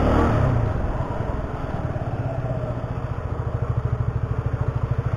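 Vehicle engine slowing in pitch in the first second, then idling with an even low pulse, picked up by an action camera's external microphone.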